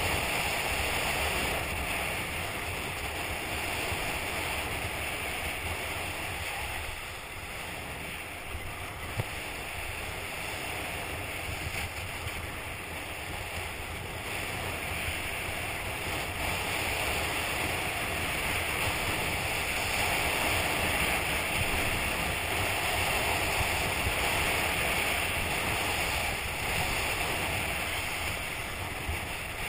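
Steady rush of wind buffeting the microphone mixed with skis hissing and scraping over groomed snow on a downhill run, swelling and easing as speed changes, with one small knock about nine seconds in.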